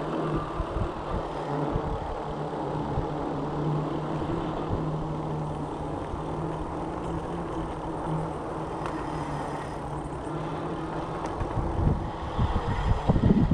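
Electric bike riding on pavement: a steady low motor hum over tyre and air noise, the hum fading out about eleven seconds in. Wind buffets the microphone near the end.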